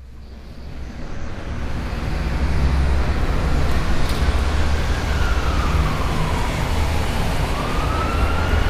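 A siren wailing over a steady low rumble and noise that swell in over the first couple of seconds; its pitch slides down and then back up once in the second half. It is the sound-design intro of an EDM track.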